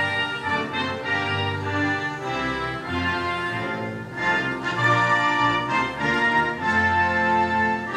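Orchestral music with slow, sustained chords that change about once a second.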